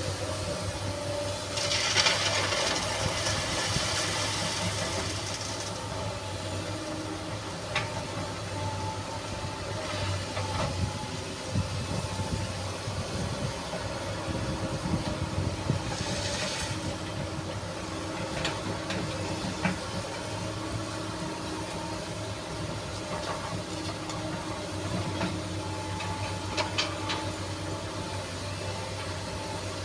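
SANY SY215C hydraulic excavator running steadily while working sand, with a rushing hiss twice (about two to six seconds in and again around sixteen seconds) and scattered light knocks and clicks.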